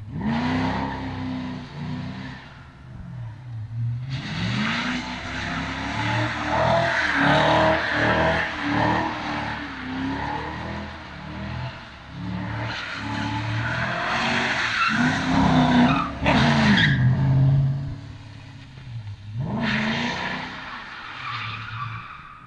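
V8 engine of a drifting car revving up and falling back again and again, with tyres squealing and skidding. The skid noise comes in a short burst near the start, a long stretch through the middle and another burst near the end.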